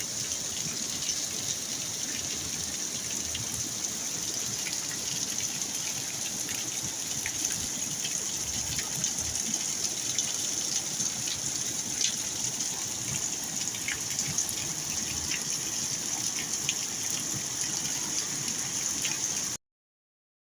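Heavy rain falling steadily in a storm, a dense hiss with scattered small drop impacts and splashes of running water; it cuts off suddenly near the end.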